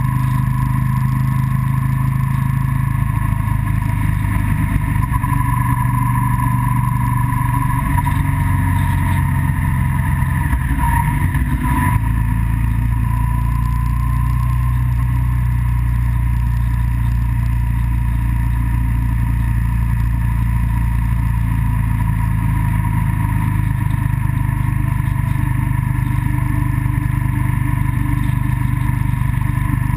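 A vehicle's engine and road noise heard from on board while driving, loud and steady; the engine note shifts a couple of times, about eight and twelve seconds in.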